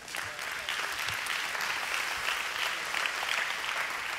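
Congregation applauding: a steady crowd of hand claps that starts at once and holds, easing off only at the very end.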